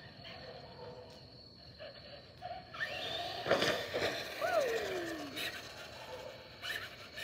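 Traxxas 4x4 Slash RC car driving over a homemade ramp: motor whine and tyre noise rise about three seconds in, with a sharp knock off the ramp, then a whine falling in pitch as the car slows.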